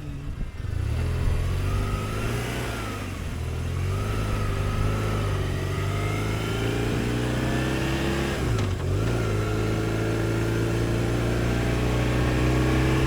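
BMW R1150RT's flat-twin boxer engine pulling uphill under acceleration. Its revs rise after about a second, dip briefly past the middle, then climb steadily again.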